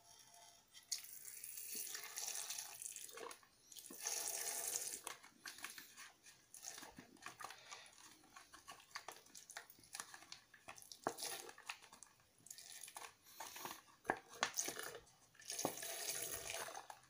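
Milk pouring from a small carton into a plastic blender jug, coming out in uneven spurts and splashes with scattered clicks: the carton's hole is small, so the milk is slow to come out.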